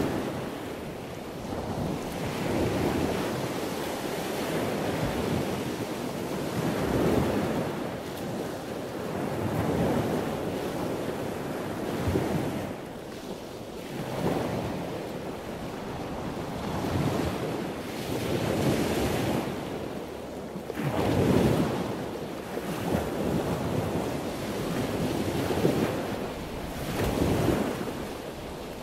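Gusty wind buffeting the microphone, a rushing noise that swells and eases every couple of seconds.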